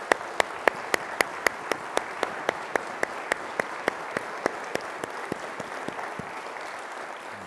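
Congregation applauding, with one close pair of hands clapping sharply and evenly about four times a second over the general applause. The applause dies away near the end.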